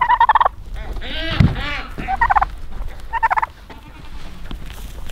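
Domestic tom turkey gobbling three times in short, rapid, rattling bursts. A lower sound with a rising-and-falling pitch comes between the first two gobbles, about a second and a half in.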